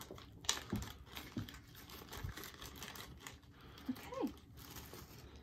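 A small plastic jewelry bag and tissue paper being handled and opened by hand: a quiet run of light crinkles and clicks, with a brief pitched sound about four seconds in.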